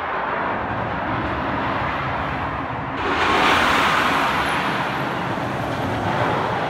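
Superman: Escape from Krypton shuttle coaster car running down the tower and along the steel track overhead: a steady rushing rumble of wheels on track. It swells to its loudest a little over three seconds in, then eases off.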